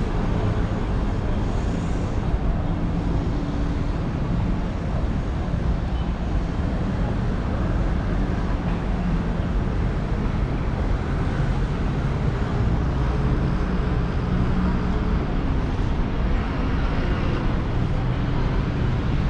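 Steady road traffic noise from cars and buses on a busy city street, a continuous low rumble with no single vehicle standing out.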